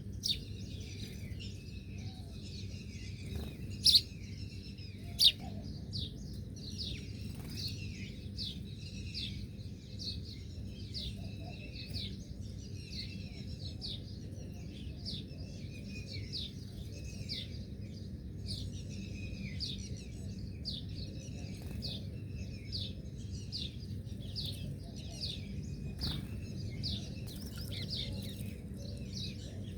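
Birds chirping continuously, many short quick notes one after another, with two louder sharp notes about four and five seconds in, over a steady low background hum.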